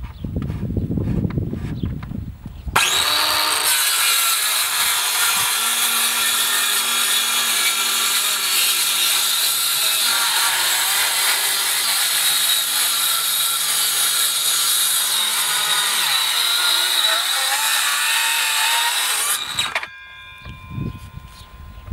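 Parkside 20V cordless circular saw starting suddenly about three seconds in and cutting lengthwise through a wooden board for about sixteen seconds. Near the end the trigger is released and the blade winds down with a fading whine.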